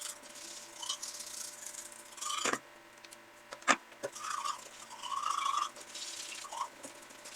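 Toothbrush scrubbing teeth in faint, irregular strokes, with two sharp clicks about two and a half and three and a half seconds in.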